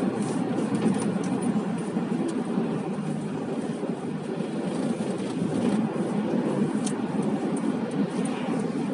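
Steady engine and road noise heard from inside the cabin of a moving car.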